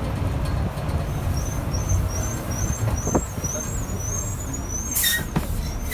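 Steady low rumble of heavy road traffic, with a row of faint high chirps above it. A sharp hiss comes about five seconds in.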